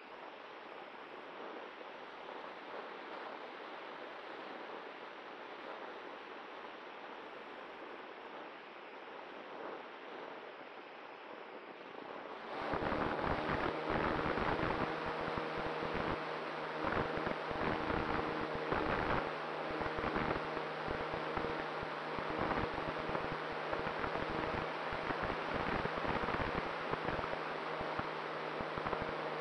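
Airflow rushing past a Cularis electric motor glider's onboard camera as it glides with the motor off. About twelve seconds in, the electric motor and propeller start suddenly and run steadily with a hum under louder, gusty wind buffeting.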